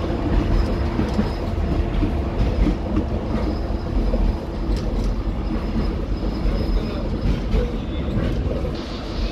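Waggon-Union ST10 tram running along the track, heard from inside the car: a steady low rumble of wheels on rail with scattered clicks and rattles.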